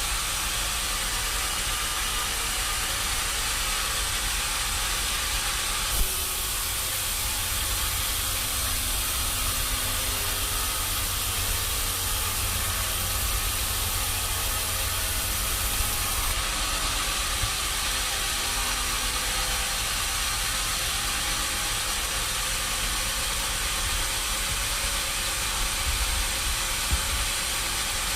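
Sawmill machinery running steadily: a constant hiss over a low hum, with a few sharp knocks.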